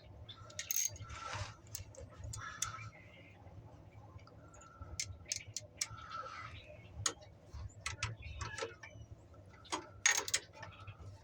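Hand tools clicking and clinking against metal at irregular intervals while old battery cables are taken off, with a louder cluster of clinks about ten seconds in.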